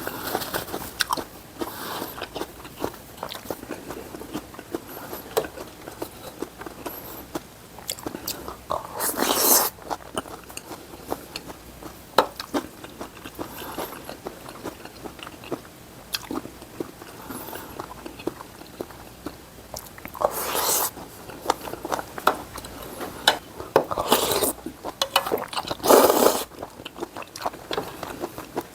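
Close-miked eating of jjamppong noodle soup and fried rice: steady chewing and mouth clicks, with about four louder, longer noisy bursts, one near the start of the middle stretch and three close together near the end.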